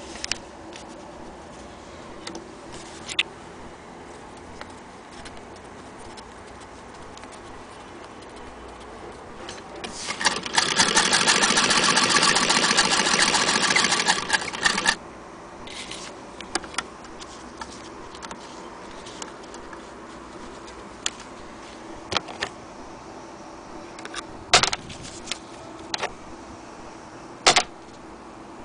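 Singer 28K hand-crank vibrating-shuttle sewing machine stitching, a fast, even mechanical clatter lasting about five seconds from roughly ten seconds in. Before and after it there are scattered sharp clicks.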